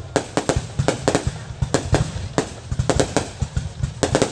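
Fireworks going off: a rapid, irregular run of sharp bangs and cracks, several a second, over a continuous low rumble.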